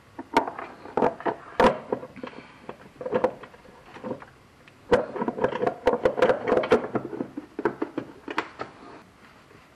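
Irregular knocks and clatter of tools and parts being handled, some strikes ringing briefly. The sounds come in two busy spells, the first about a second in and a longer one from about five seconds in.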